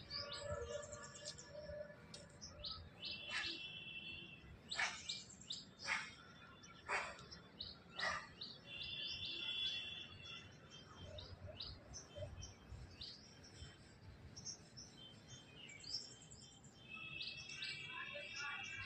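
Small birds chirping and calling: many short high chirps and trills, with a run of louder sharp notes about once a second in the middle stretch.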